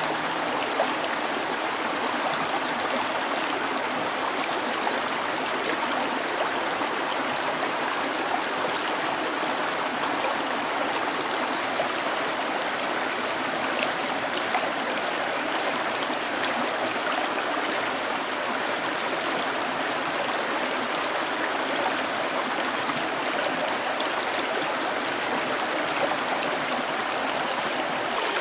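Small stream running steadily, with a thin steady high tone above the rush of the water.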